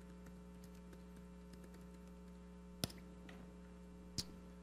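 Steady low electrical mains hum, with faint laptop keystrokes and two sharper key clicks, about three and four seconds in, as a web search is typed.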